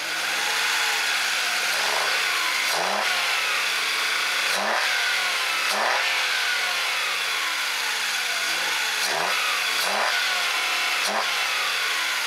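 VW Polo 1.2 three-cylinder petrol engine revved up and down several times from idle, each blip rising and falling in pitch, with a raspy, thick note just after a water-based decarbonising clean.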